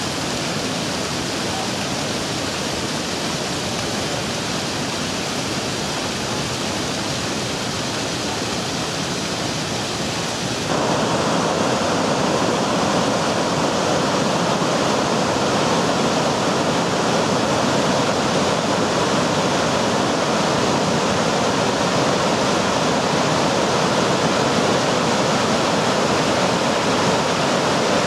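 Steady rush of falling water: a small waterfall splashing onto rocks. About ten seconds in it changes suddenly to a louder, fuller rush of a swollen river pouring over a rocky cascade and rapids.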